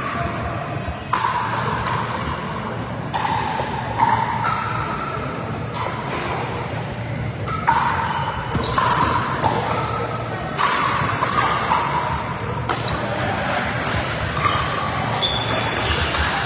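Pickleball paddles hitting a hard plastic ball, with the ball bouncing on the floor: a string of sharp, hollow pocks roughly every second, each ringing briefly in a large sports hall over a steady low hum.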